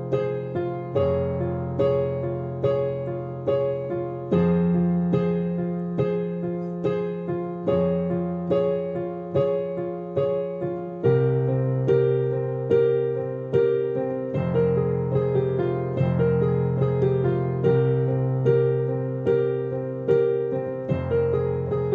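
Slow solo piano music: notes struck about every half second over held low chords that change every few seconds.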